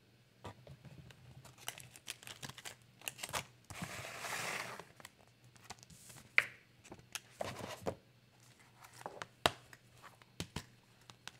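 Handling noises at a desk: scattered rustling and sharp clicks and taps, with a longer crinkling rustle about four seconds in, like paper or packaging being handled.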